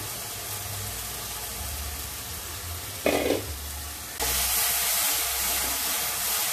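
Cooked-down tomato and onion masala sizzling in oil in a non-stick kadhai and being stirred with a spoon. The sizzle turns suddenly louder and brighter about four seconds in, just after a brief louder sound.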